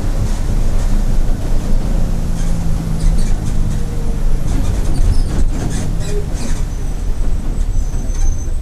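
Mercedes-Benz OF-1722M city bus under way: a steady engine and drivetrain drone with rattling from the body around the middle, easing off near the end as the bus slows. The deep drone carries the growl of a noisy differential.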